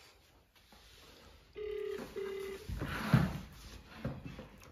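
Mobile phone on speakerphone playing the ringback tone of an outgoing call: one double ring about one and a half seconds in, the call still unanswered. About three seconds in comes a loud muffled rustling noise, the loudest sound here.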